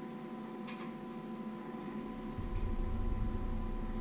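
Steady electrical hum of room tone, with a faint click about a second in and a low rumble coming in about two seconds in.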